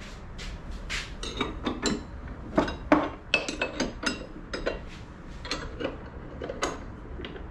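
Metal clinking and knocking, many sharp irregular strikes with a short ring, as the rod holder's metal crossbar and upright are handled and swung on their joint. The loudest knock comes about three seconds in.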